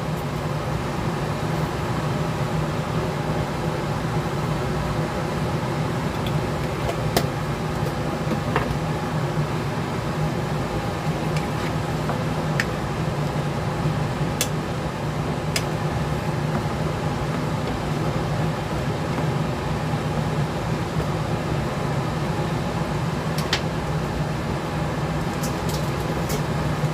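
Steady whirring hum of a fan running, with a few light knocks of a wooden spatula against the pan.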